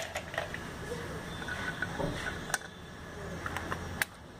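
Light metallic clicks and taps from hand work on the rocker arms of a Hyundai Accent CRDi diesel's aluminium cylinder head, with two sharper clicks about two and a half and four seconds in.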